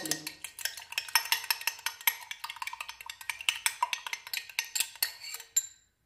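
Metal teaspoon stirring syrup in a stemmed wine glass, clinking rapidly against the glass several times a second, with the glass ringing faintly; the clinking stops just before the end.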